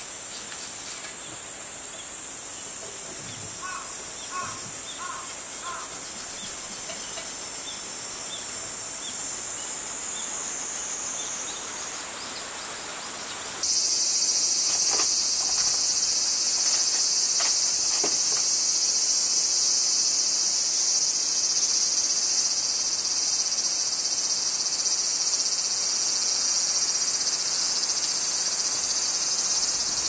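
Dense, steady chorus of cicadas, a shrill high-pitched drone that turns louder and fuller about 14 seconds in. A few faint short chirps sound around 4 to 6 seconds in.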